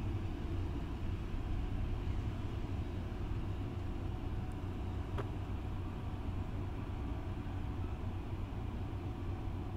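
Steady low rumble of a tugboat's diesel engines and churning propeller wash as the boat pulls away, fading slightly.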